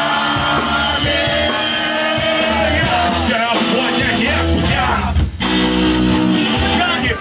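Punk rock band playing live: guitars, bass and drums with a voice singing over them, with a brief break about five seconds in.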